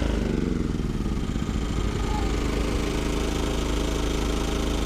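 Westinghouse iGen2500 inverter generator switched off, its engine winding down with falling pitch over about the first second, while a second portable generator keeps running steadily.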